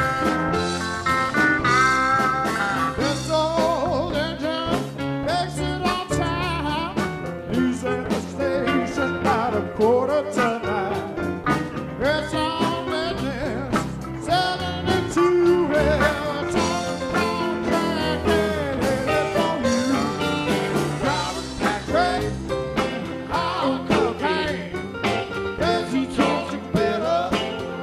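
Live band playing a country-rock number, with electric bass and drums under the other instruments.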